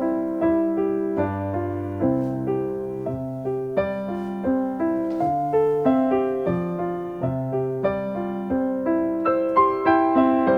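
Soft background piano music, gentle notes played in a slow, even rhythm.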